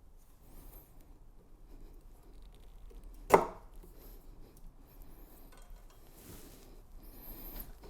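Cart parts being handled and fitted together, with faint scraping and rustling and one sharp knock about three seconds in, as the spacers go into the cart frame.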